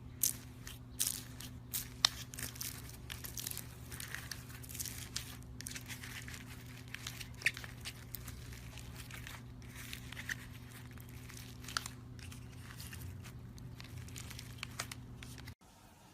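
Rapid crackling and crunching from a crunchy material being pressed and worked by hand, over a low steady hum. It cuts off suddenly near the end.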